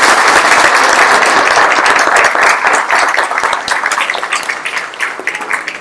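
Audience applauding, the dense clapping thinning out to scattered claps near the end.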